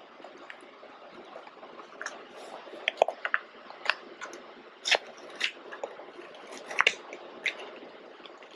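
Pit bull licking and chewing at a plastic chocolate mousse cup held between its paws: irregular wet smacking and licking, with sharp clicks scattered through it.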